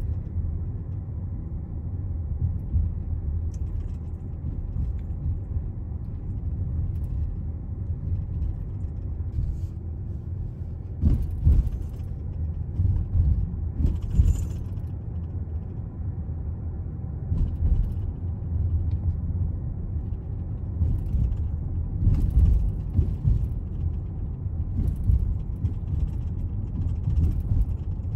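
Car driving slowly, heard from inside the cabin: a steady low rumble of road and engine noise, with occasional light clicks and knocks.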